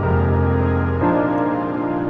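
Background music: slow ambient synth chords held for about a second each, changing chord about a second in.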